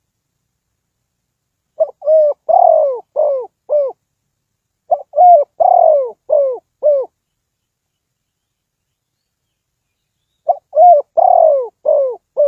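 Spotted dove cooing: three phrases of five or six rounded coo notes each, with long silent gaps between the phrases.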